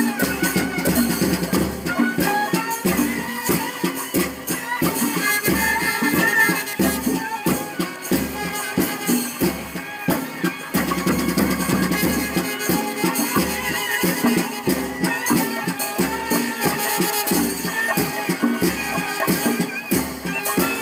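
Procession band music: a wavering melody over a steady low beat, with busy high-pitched percussion throughout.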